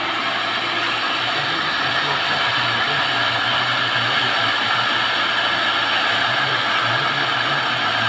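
Electric jet pump running steadily with a low motor hum, newly installed and drawing water into its pressure tank.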